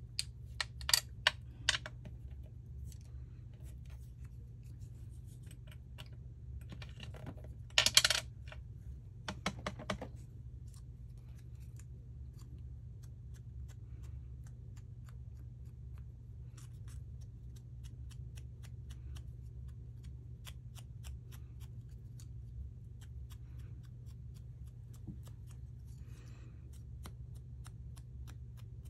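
Light clicks and clatter of small craft supplies being handled on a tabletop: a few sharp clicks in the first two seconds and a louder clatter about eight seconds in, then only faint ticks over a steady low hum.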